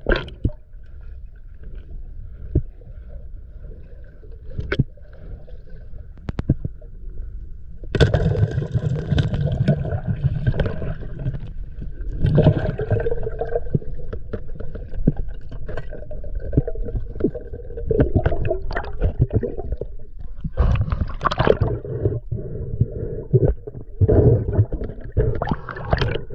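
Water splashing and sloshing with knocks and scrapes around a small boat, getting louder and busier about eight seconds in.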